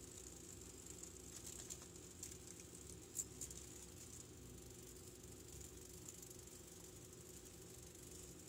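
Near silence: faint steady hiss of room tone, with a few faint ticks and one slightly sharper tick about three seconds in.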